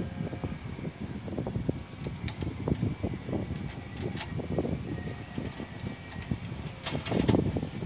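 A few light metallic clicks as a nut is spun by hand onto the brass stud of a welding machine's output terminal, over an uneven low rumble that swells near the end.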